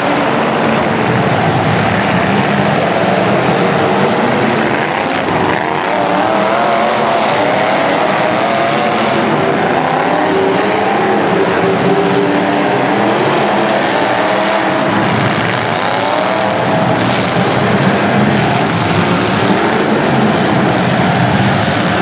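Demolition derby cars' engines running and revving together, several engine notes rising and falling over one another in a steady, loud din.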